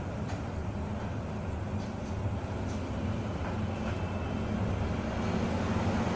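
Car engine idling steadily, a low even hum that grows slightly louder toward the end.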